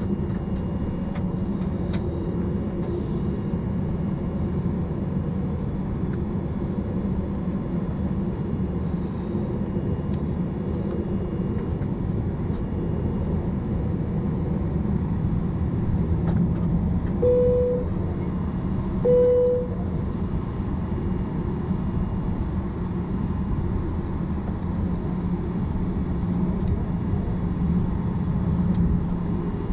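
Cabin noise of a Boeing 737-800 taxiing: its CFM56-7B engines hold low taxi power as a steady hum over a low rumble, with no spool-up. About two-thirds of the way through, two short tones of the same pitch sound about two seconds apart.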